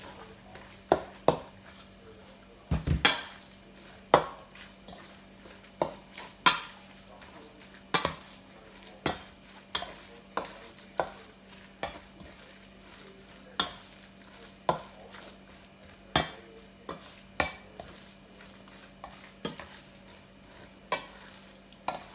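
A spoon clinking and scraping against a stainless steel mixing bowl as a wet ground-pork and egg filling is stirred, with irregular clinks about once a second. There is a heavier knock against the bowl about three seconds in.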